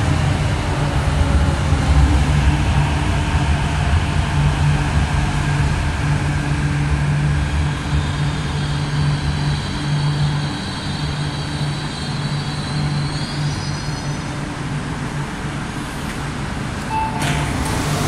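MTR Kwun Tong Line Q-Train pulling into the station and braking to a stop: a steady low rumble, with high whining tones in the last seconds of braking. Near the end there is a short beep and a brief clatter as the doors open.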